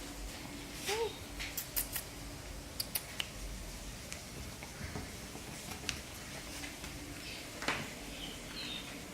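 Scattered sharp clicks and taps from a dog's claws and teeth on a hardwood floor as it plays with a plush teddy bear, with a brief squeak about a second in.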